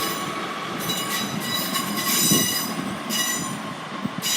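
Wheels of a departing train squealing against the rails: a high, ringing squeal that swells and fades several times over the rumble of the train moving off.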